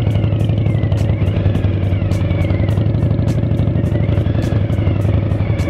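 Suzuki V-Strom 1000 motorcycle under way at steady road speed: the V-twin engine's low, even hum mixed with heavy wind and road noise.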